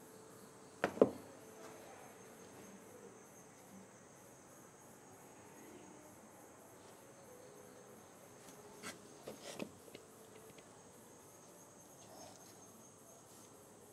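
Sharp clicks and knocks of small parts being handled: a loud pair about a second in and a cluster of smaller ones around nine to ten seconds in, over a faint steady high-pitched chirring.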